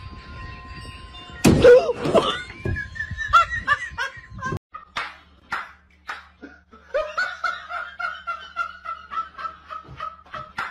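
People laughing in short repeated bursts, after a sudden loud burst of sound about a second and a half in.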